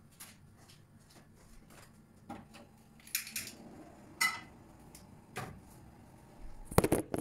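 Kitchenware being handled: scattered clicks and knocks, a brief metallic clink about four seconds in, and a quick louder clatter near the end.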